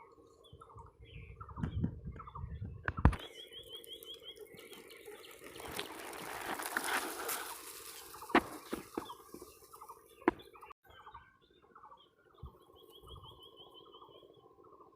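Birds chirping, including a rapid trilling call heard twice, over a steady low hum. A few sharp knocks break in, and there is a brief rush of noise about six seconds in.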